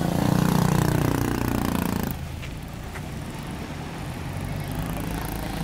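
Airliner's engines passing close by on its landing run, a loud pitched whine with a sliding tone that cuts off suddenly about two seconds in. A quieter, steady low rumble follows.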